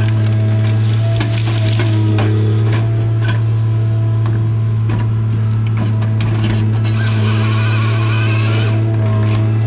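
Tigercat 855C harvester's engine and hydraulics running with a steady low drone, heard from the cab, with scattered sharp cracks and snaps as the LogMax 7000 head handles hardwood stems. A wavering higher whine joins in about seven seconds in and stops shortly before the end.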